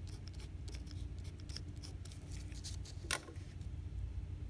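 Pencil writing letters on black construction paper: a run of short scratching strokes, then a single click about three seconds in.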